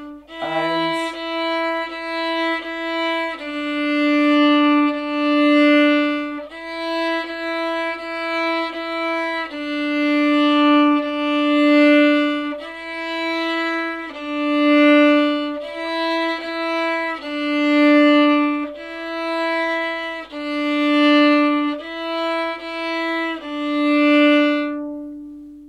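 Solo violin bowing a simple beginner's tune on two neighbouring notes, the first-finger note and the open string just below it, in a slow repeating pattern of short and long notes. The last note is held and fades out near the end.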